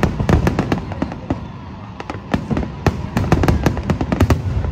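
Aerial fireworks bursting in quick succession, many sharp reports and crackles overlapping, coming thickest in the second half.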